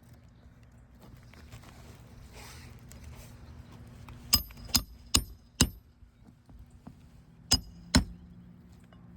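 Hammer striking roofing nails on an asphalt shingle roof: four quick blows with a short metallic ring, then two more a couple of seconds later.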